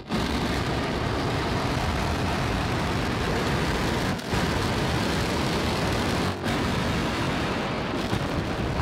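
Starship SN8's Raptor rocket engines firing during the flip and landing burn: a steady, rushing rumble. It drops out briefly twice, about four and six seconds in.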